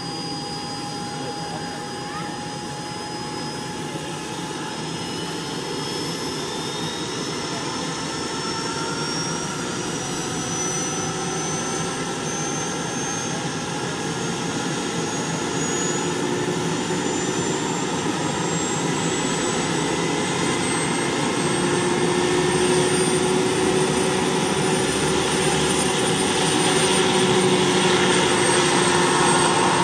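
Small model turbine engine of a radio-controlled Mi-24 Hind helicopter whining, its pitch climbing slowly and its sound growing louder.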